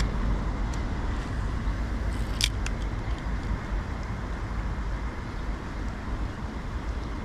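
Steady rush of river water with a low rumble of wind on the microphone, and a few light clicks, the sharpest about two and a half seconds in.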